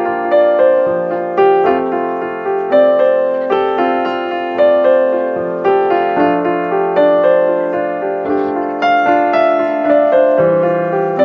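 Background piano music, an even, unhurried run of notes.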